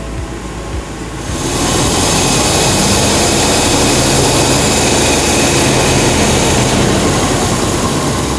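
Mercedes 450SL's 4.5-litre V8 engine running loud and steady with a strong hissing rush, heard close up in the engine bay. It comes in suddenly about a second in and is running on an improvised choke, a Golf 2 heater valve worked by a cable.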